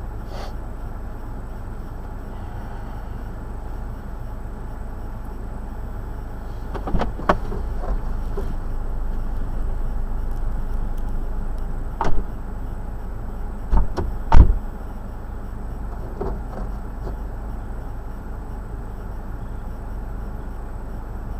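A steady low rumble of a motor vehicle running, with a few sharp knocks over it: a pair about seven seconds in, one about twelve seconds in, and the loudest pair around fourteen seconds in.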